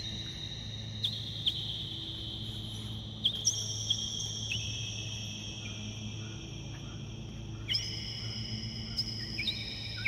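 Soft background music: sustained high notes that change every second or so, each starting with a light strike, over a steady low hum.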